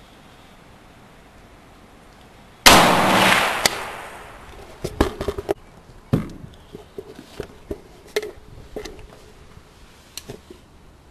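A single shot from a 300 Blackout AR-15 rifle about two and a half seconds in, its report trailing away over more than a second, followed by scattered small clicks and knocks of handling.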